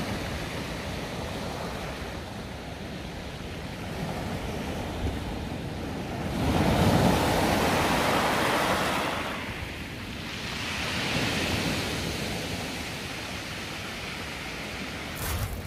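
North Sea waves breaking on the shore: a continuous wash of surf that swells to its loudest about seven seconds in, eases, then surges again a few seconds later.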